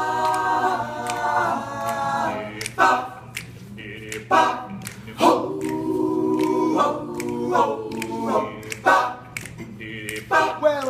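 Male a cappella group singing close-harmony backing chords without instruments. Held chords alternate with short chord stabs, and sharp clicks fall between them.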